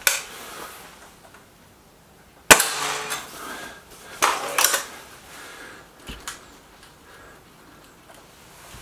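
Spring-piston air rifle shot, a single sharp crack about two and a half seconds in, from the Stoeger RX20 S2. Shorter clacks come right at the start, around four seconds in, and twice about six seconds in.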